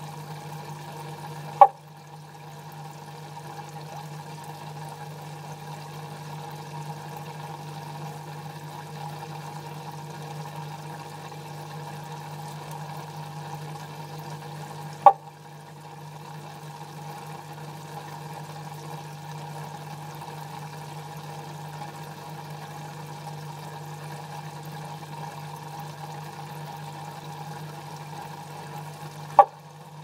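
White's tree frog giving single short, loud 'bok' calls, three of them about 14 seconds apart, over steady trickling water and a low hum.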